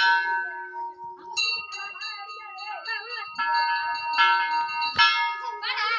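Small brass temple bells hanging from a tree being rung, about five sharp strikes with their tones ringing on and overlapping.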